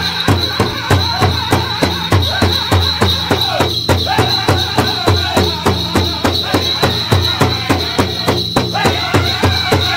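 Powwow drum song: a big drum struck in a steady, even beat of about three strokes a second, with singers over it.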